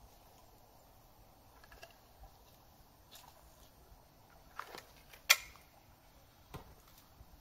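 Sharp, scattered cracks and clicks of sticks at a small wood campfire being tended by hand, over a quiet background; the loudest is a single sharp crack about two-thirds of the way through.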